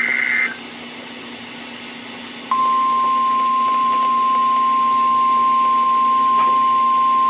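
The last half second of a NOAA Weather Radio SAME data header: a burst of warbling data tones. About two seconds of hiss and hum follow. Then, about two and a half seconds in, the weather radio's single-pitch 1050 Hz warning alarm tone starts abruptly and holds steady, signalling that a warning (here a flood warning) is about to be broadcast.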